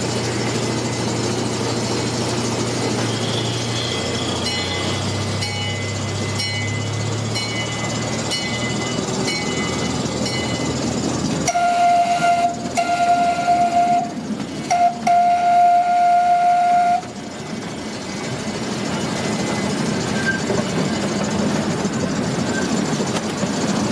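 Zoo ride train running with a steady low engine hum and a light regular ticking, then sounding its horn in four blasts, long, long, short, long: the grade-crossing signal. After the horn it runs on with a steady rumble.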